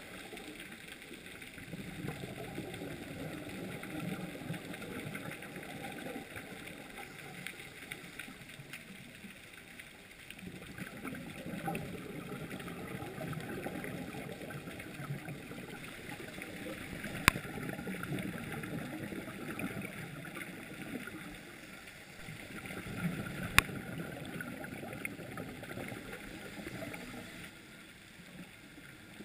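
Underwater sound heard through a camera housing: a diver's breathing and exhaled bubbles, a bubbling hiss that swells and eases every several seconds. Two sharp clicks stand out, one about midway and another some six seconds later.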